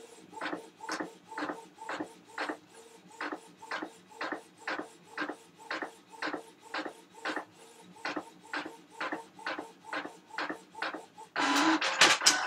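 Printer printing: a regular swish about twice a second as the print head passes and the page advances, then a louder, longer run of mechanism noise near the end.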